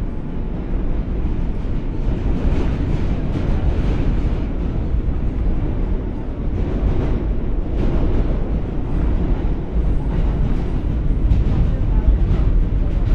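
New York City subway Q train running between stations, heard from inside the car: a steady low rumble with irregular rattles and clacks from the wheels on the track.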